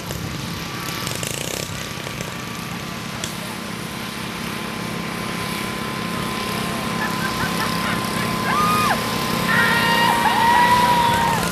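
Riding lawn tractor engine running steadily as the tractor races along a dirt track, growing louder as it comes closer near the end.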